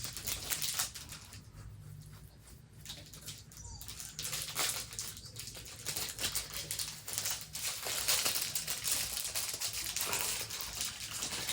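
Plastic packaging crinkling and rustling irregularly as small fidget toys are handled and pulled out of a bag, over a low steady hum.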